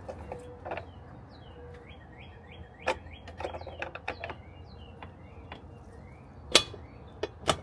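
Sharp metallic clicks and knocks as a gloved hand works the cover and parts of a metal electrical disconnect box, the loudest one about two-thirds of the way in. A bird chirps over and over in quick short notes in between.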